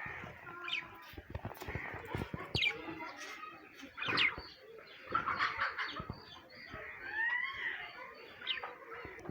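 Several birds chirping and calling in short, overlapping notes, some sweeping up or down in pitch, with scattered short clicks and taps among them.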